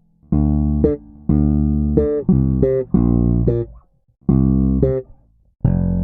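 Solo electric bass guitar, a Sago Seed Tabuchi Mk-II with a custom Tabuchi pickup, playing short phrases of plucked notes. Each phrase ends with a quick run of notes and is cut off sharply, leaving a brief gap before the next.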